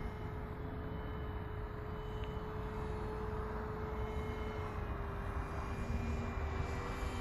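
Distant aircraft motor droning at a steady pitch that drops slightly about five seconds in, over a low rumble of wind on the microphone.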